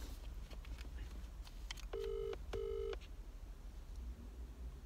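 British telephone ringback tone through a smartphone's speaker, with an outgoing call ringing unanswered: one double ring about two seconds in, and the next double ring starting right at the end.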